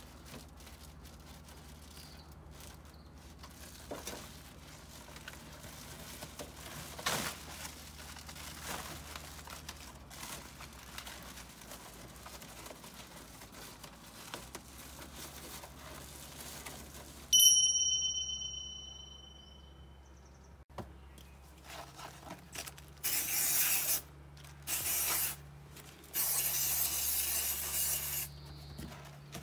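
Aluminium insulation sheet crinkling and rustling as it is handled and spread out, faint at first, then in loud bursts over the last several seconds. A single bright ding rings out a little past halfway.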